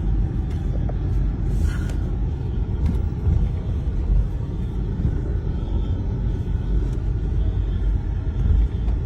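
Steady low rumble of a car on the move, with no distinct events standing out.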